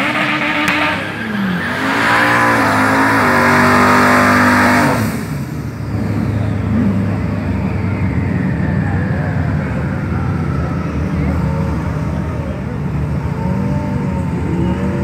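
Twin-turbocharged Chevrolet Impala V8 revving hard through a burnout, engine note rising and falling over squealing tyres for about five seconds. It then drops back to a rough, lumpy idle with a few short throttle blips as the car creeps up to the starting line.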